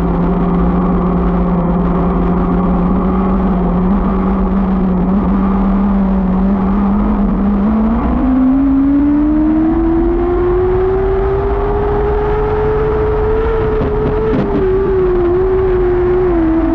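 Lightning sprint car engine running at a steady pitch, then picking up revs: its note climbs from about eight seconds in, peaks a few seconds later, then dips and wavers as the throttle is eased and reapplied.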